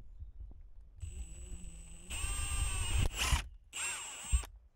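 Cordless power drill with a larger bit whining in about three short bursts, the last one rising and falling in pitch, as it enlarges a hole in the plastic dash so a mounting nut can seat.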